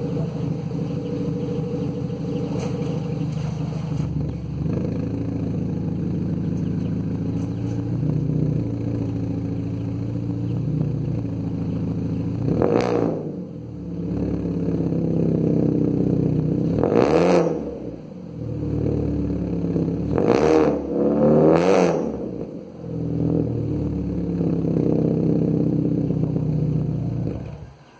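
Chevrolet Sail sedan's exhaust through an aftermarket Borla muffler with twin tips: idling steadily, then revved four times from about thirteen to twenty-two seconds in, each rev rising and falling back, before settling to idle and stopping right at the end.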